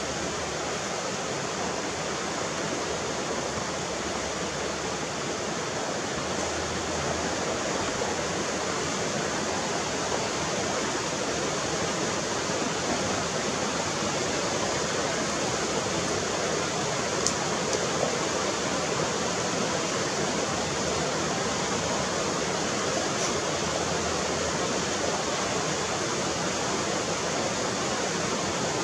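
Steady, even rushing hiss that holds level throughout, with a few faint ticks just past the halfway point.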